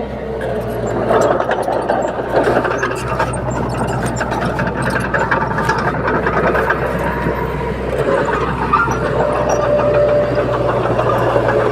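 Crawler bulldozer's diesel engine running steadily at working speed, with many short metallic clicks and rattles over it.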